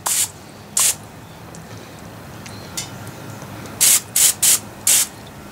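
Aerosol can of Pam cooking spray hissing in short spritzes onto an open cast-iron pie iron: two bursts in the first second, then four quick ones in a row a little before the end.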